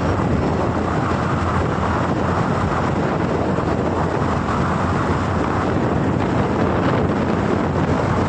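Steady wind rushing over the microphone of a Honda Activa scooter while riding, with the scooter's engine and road noise beneath it.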